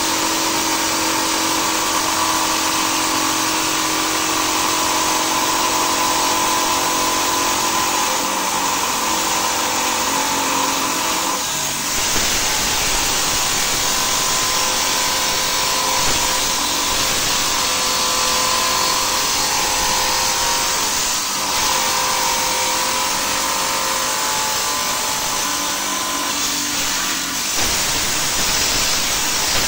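Small electric stone-cutting saw running steadily while its blade cuts agate, its hum shifting in pitch several times as the load on the blade changes.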